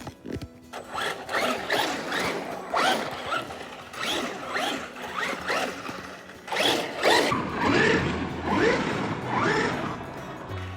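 Traxxas Rustler 4x4 VXL RC truck's brushless motor and drivetrain whining through repeated short bursts of throttle, each a quick rising whine, about two a second, with its clutch freshly tightened for better acceleration.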